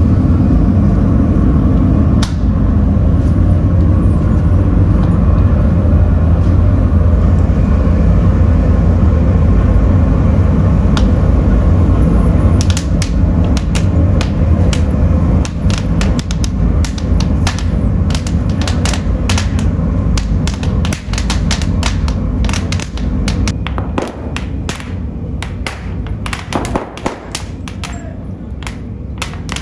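Factory machinery running with a steady low rumble. From about halfway through, many sharp metallic clicks and taps come in irregular clusters over it.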